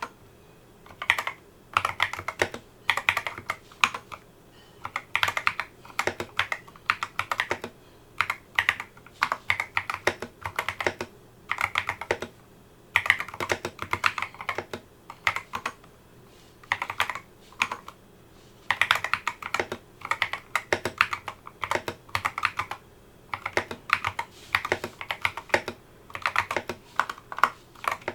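Typing on a Geeky GK61 hot-swap mechanical keyboard fitted with replacement switches and keycaps: runs of quick keystrokes broken by short pauses, a sound test of the modded board, which is described as deeper and more premium.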